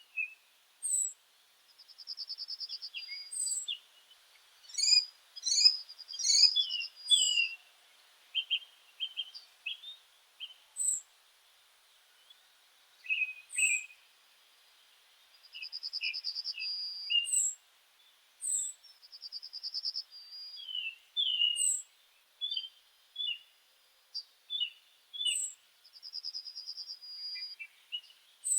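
Several meadow songbirds singing and calling: short chirps, thin high notes that slide down, and a trilled phrase about a second long that comes back every few seconds.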